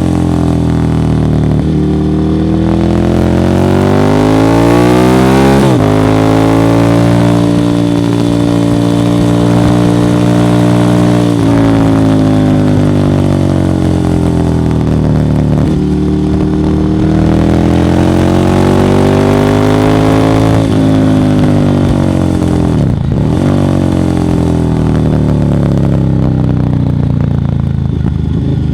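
Ducati Monster 1100 evo's air-cooled L-twin running loud through a Termignoni exhaust, its pitch rising and falling over several seconds at a time. There are several sudden drops in pitch along the way.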